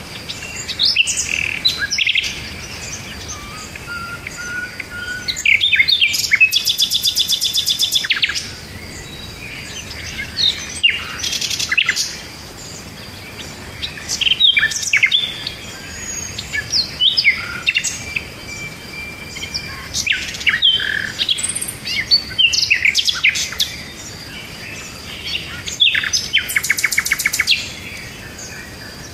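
Birds singing and chirping: many short chirps and whistled calls, with a fast trill of rapidly repeated notes lasting about two seconds around seven seconds in and again near the end, over a faint steady high tone.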